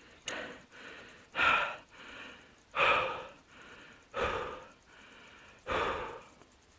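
A man breathing hard, out of breath from exhaustion: four heavy breaths about a second and a half apart, with softer breaths between.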